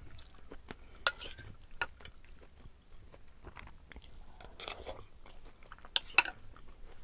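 Close-up mouth sounds of someone eating black bean noodles: chewing and smacking, with a few sharp clicks, two of them close together near the end.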